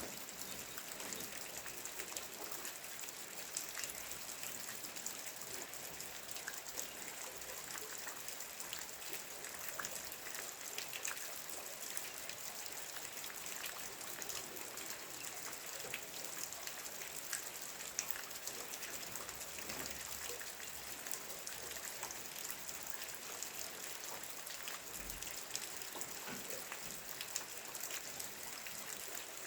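Steady rain falling, many individual drops pattering on surfaces.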